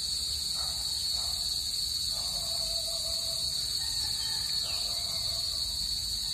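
A steady, high-pitched chorus of insects shrilling without a break, with faint, brief lower tones coming and going under it.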